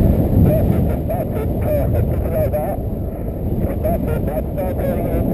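Wind rushing over the camera microphone in paraglider flight, a steady buffeting rumble, with an irregular wavering pitched sound over it at times.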